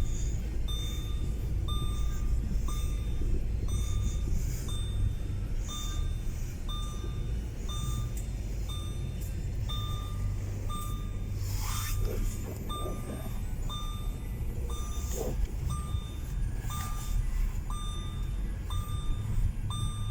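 An electronic warning beeper sounding a short, steady beep about once a second, over the low rumble of a running vehicle.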